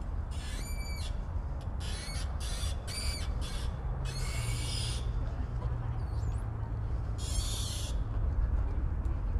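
A bird giving a series of short, harsh calls, about six in all, the longest about four seconds in and the last near the end. Steady low wind rumble runs beneath them.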